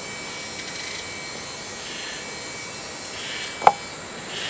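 Steady rainforest insect drone over a background hiss, with one sharp click about three and a half seconds in.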